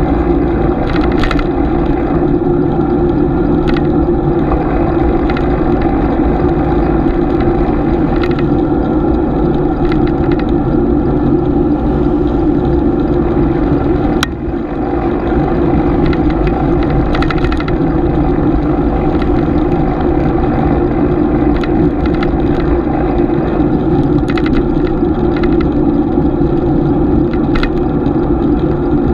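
Bicycle riding noise picked up by a bike-mounted GoPro: a steady, loud rumble of road and drivetrain noise, with scattered light clicks and one sharper click about halfway through.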